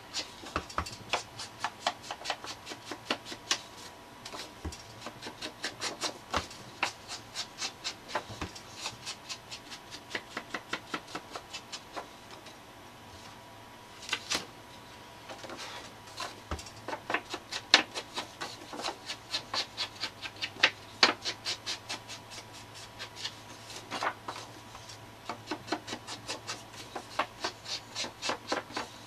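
A Distress ink pad being rubbed in quick, repeated strokes along the edges of paper tags to ink them, several strokes a second, with a brief pause about halfway through.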